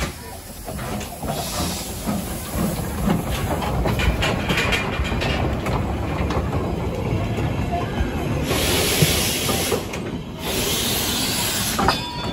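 Peckett 0-4-0 saddle-tank steam locomotive running past at close range, with knocks and clanks from its wheels and motion. Steam hisses loudly twice near the end.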